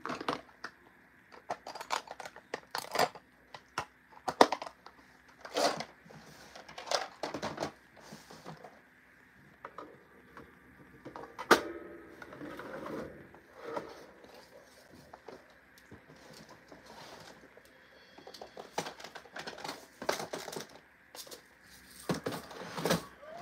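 Nail supplies being handled on a desk: irregular clicks, taps and clatters of small hard objects set down and picked up, with some rustling.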